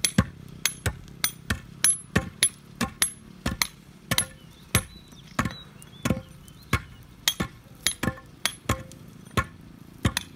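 Steel tool striking hard ground or masonry in quick, repeated blows, about three a second, several with a short metallic ring.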